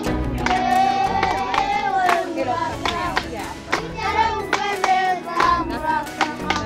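A group of children singing together, with hand claps about twice a second keeping time.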